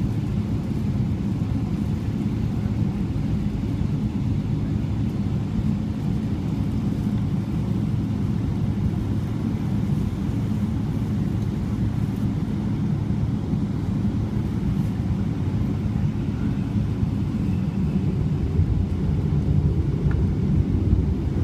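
Boeing 777-300ER cabin noise: a steady low drone of the GE90 engines at low power during taxi, with a few steady low tones in it, growing slightly louder near the end.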